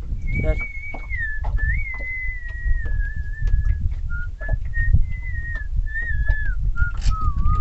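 A man whistling a slow melody in held notes, the tune sinking lower near the end. Low rumble and scattered knocks run underneath.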